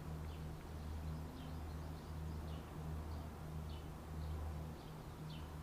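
Faint high chirps, short and falling, repeating about once a second over a steady low hum.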